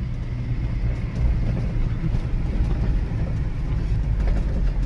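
Hino truck's diesel engine running at cruising speed with tyre and road noise, heard from inside the cab as a steady low rumble.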